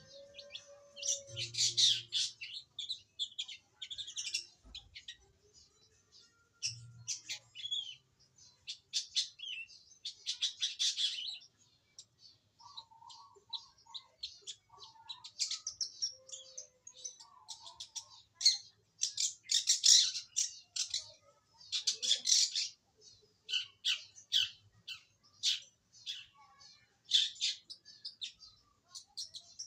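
A young long-tailed shrike (cendet), fresh from the wild, singing: bursts of many quick, high, chattering notes with short pauses between them. It is just beginning to come into song.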